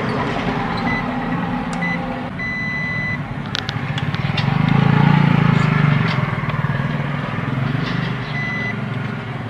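Multimeter continuity buzzer sounding in short high beeps as the probes touch the charger's diodes: two brief beeps early, a longer beep of about a second at around the three-second mark, and another short beep near the end. Over a steady low rumble that swells about halfway through, with a few light clicks.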